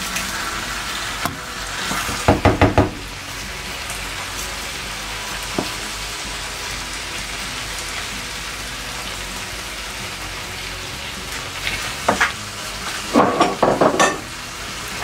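Koottu curry sizzling steadily in a pan. A spoon stirs and scrapes against the pan in short bursts about two seconds in and again near the end, as fried coconut is mixed in.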